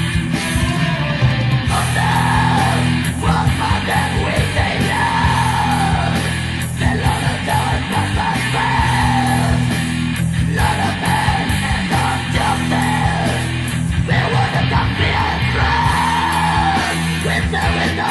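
Black metal demo recording: distorted guitars and drums with harsh vocals in drawn-out cries recurring every couple of seconds.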